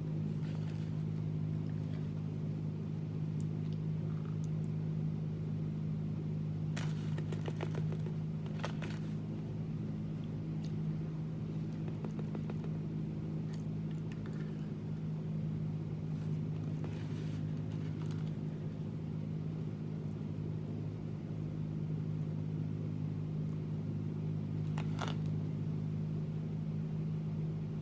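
Steady low machine hum in the room, several even tones held without change. A few faint clicks and scrapes come through it as a spoon works spread out of a small metal can.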